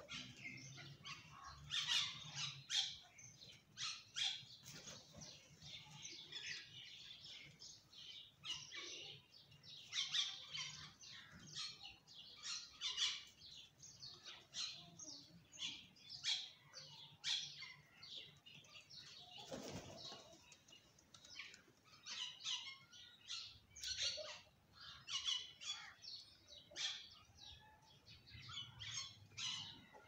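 Small birds chirping in many short, high calls that overlap without pause, from a flock feeding on the ground among crows; faint.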